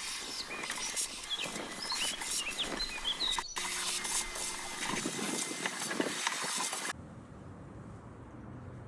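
Small birds chirping over a dense hiss with quick scratchy clicks, which drops to a fainter, lower hiss about seven seconds in.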